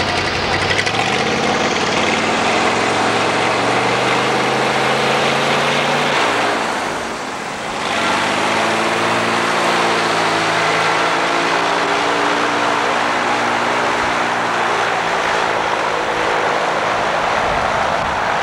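Engine of a stripped-down wreck-parade vehicle running close by. Its pitch rises about a second in, and it keeps running with the revs rising and falling. The sound briefly drops away about seven seconds in before the engine is heard again.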